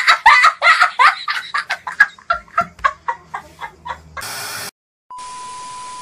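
A boy laughing hard in a run of cackling bursts that slow and fade. Near the end comes a short burst of TV static, a moment of silence, and then a steady high test-pattern beep over hiss.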